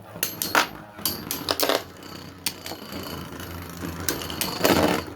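Two spinning 3D-printed Beyblade tops clashing in a stadium: a string of sharp plastic clicks and rattles from repeated hits over a steady whir, with a louder rattling clash near the end.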